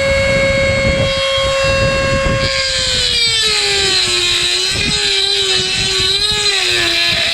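Dremel rotary tool with a small grinding wheel, first spinning free with a steady high whine, then dropping in pitch and wavering about two and a half seconds in as the wheel bites into the van's roof metal, with a rough grinding noise over it. It is grinding out a misaligned mounting hole so the welded nut's threads below can be reached.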